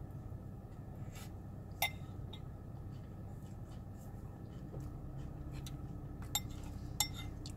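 Metal spoon clinking a few times against a cereal bowl while eating, with a steady low hum underneath.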